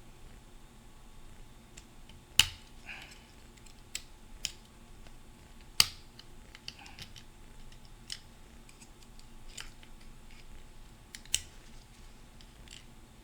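Small metal tools clicking and scraping against a transmission part while a snap ring is pried off a spring retainer with a flathead screwdriver and a pick. Three sharp clicks stand out, about 2.5, 6 and 11 seconds in, among lighter ticks.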